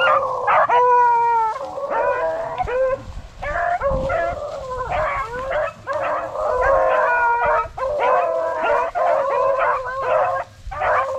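A pack of rabbit hounds baying and howling on a rabbit's trail, several dogs giving voice at once with calls overlapping almost without a break.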